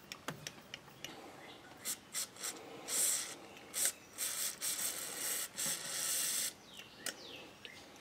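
Aerosol brake cleaner sprayed through its straw into a leaf blower's small carburetor in several short hissing bursts, the longest about a second, flushing out passages gummed up with gelled fuel. Light clicks of small metal parts being handled come between the bursts.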